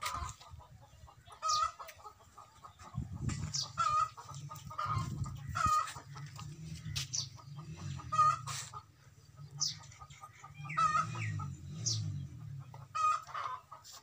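Chickens clucking in short, sharp calls about every second or so, over a faint low rumble.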